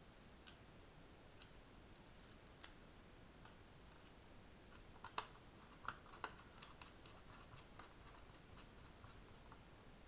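Faint clicks and light ticks of a small Phillips screwdriver turning the tiny screws that hold down the hard drive bracket in an Asus Eee PC 1000H netbook. A few sharper clicks come about five to six and a half seconds in, followed by a run of light ticks.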